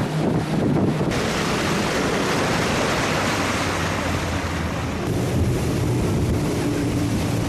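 Wind buffeting the microphone on a moving motorboat, over the steady drone of the boat's engine and rushing water. The wind noise thickens about a second in.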